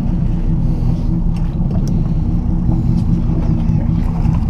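Boat engine idling with a steady low rumble.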